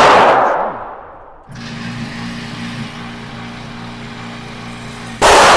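Two pistol shots from a 9mm Glock 45, one at the start and one near the end, each loud and ringing off for about a second. Between them a steady low mechanical hum runs from about a second and a half in.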